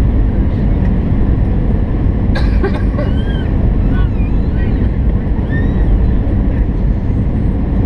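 Airliner cabin noise of an Airbus A319 on final approach: the steady low rumble of its jet engines and rushing air, heard from a window seat beside the wing. A brief click comes about two and a half seconds in.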